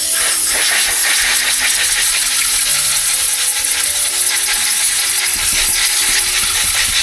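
Repaired two-stroke chainsaw engine running, loud and steady.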